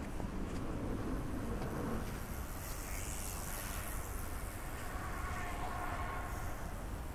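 A vehicle passing on a town street over a steady low rumble, its hiss swelling around the middle, with a faint steady whine entering near the end.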